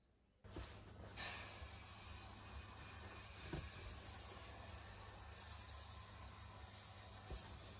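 Electrostatic powder coating gun spraying red powder on compressed air: a steady hiss that starts abruptly about half a second in, with a low hum underneath.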